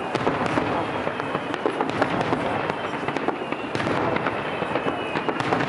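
Fireworks display: a dense, continuous crackling and popping of bursting aerial firework shells, growing louder about two-thirds of the way through.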